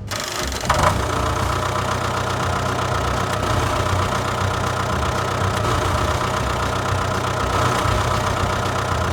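A small motor running steadily at an even speed, starting up just under a second in with a short click.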